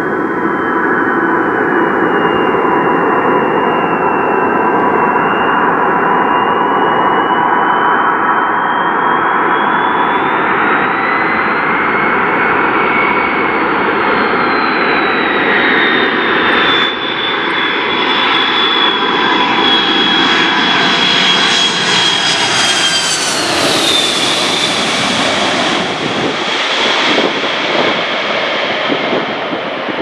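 McDonnell Douglas KC-10A Extender on final approach, its three General Electric CF6 turbofans running as a loud roar with a high fan whine. The whine rises as the jet comes in, then drops sharply in pitch as it passes overhead about three quarters of the way through. The roar then carries on going away.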